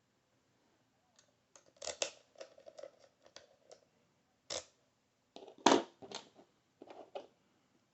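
Metal lockpicking tools clicking and scraping as they are handled and set into a lock: an irregular scatter of sharp metallic clicks, the loudest about halfway through.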